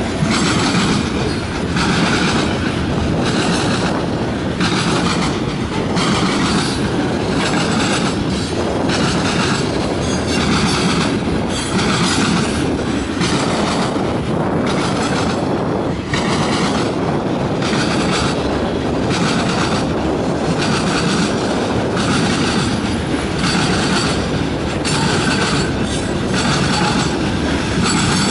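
Freight train's covered hoppers and tank cars rolling past close by: a constant rumble of steel wheels on rail, with wheels clacking over rail joints in a steady, even rhythm.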